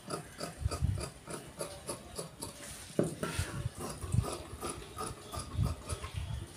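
Large steel tailor's shears snipping through shirt fabric on a cutting table, cutting out the front panel along a chalk line. The blades close in a steady rhythm of short snips, several a second, with soft knocks as the shears slide along the table.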